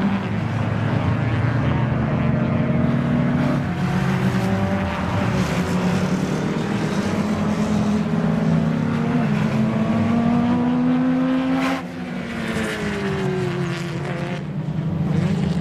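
Several classic cars racing, their engines running hard, the pitches of more than one engine rising and falling at once as they accelerate, change gear and pass. About three-quarters of the way through, one car's engine climbs to a peak and then drops in pitch as it goes by.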